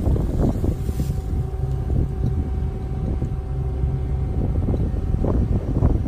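John Deere T550 Hillmaster combine harvester running as it drives over stubble, a steady low mechanical drone with a faint steady whine for a few seconds in the middle. Wind buffets the microphone throughout.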